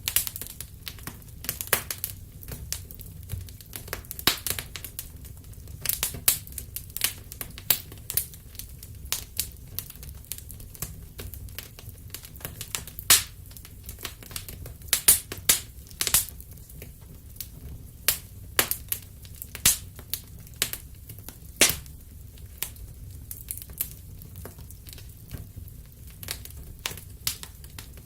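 Wood burning in a fireplace, crackling with irregular sharp pops and snaps over a low steady rumble.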